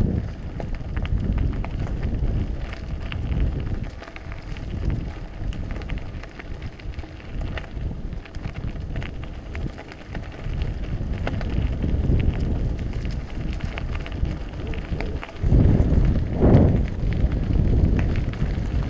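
Wind buffeting the action camera's microphone over mountain bike tyres rolling on loose gravel, with small clicks and rattles from the bike. Near the end it gets louder for a second or two, with a brief pitched sound in it.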